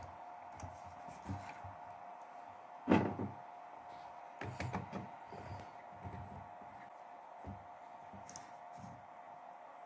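Handling clunks from a homemade anchor winch's plastic spool and metal shaft as its parts are fitted together by hand: one sharp knock about three seconds in, then a cluster of clicks and clunks a second or two later, over a steady faint hum.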